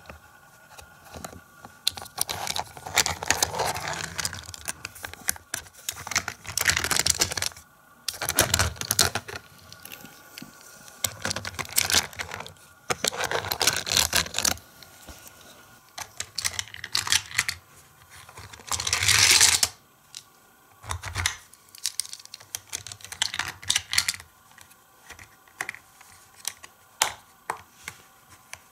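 Hard plastic toy playset and a die-cast toy truck being handled: irregular bursts of clicking, rattling and scraping as the truck and the plastic crane and elevator parts are moved. One longer scrape comes about two-thirds of the way through.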